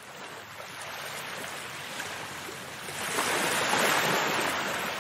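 Ocean surf: a steady wash of waves that swells about three seconds in and then eases off.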